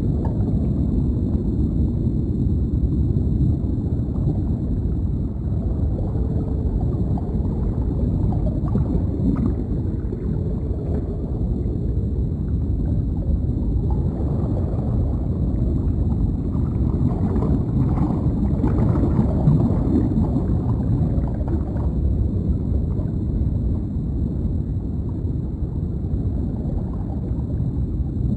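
Deep underwater ambience: a steady low rumble of water with faint bubbling now and then.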